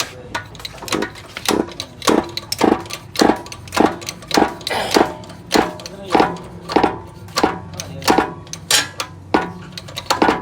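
Steel hammer striking a metal part over and over, a blow about every 0.6 s, each with a short metallic ring.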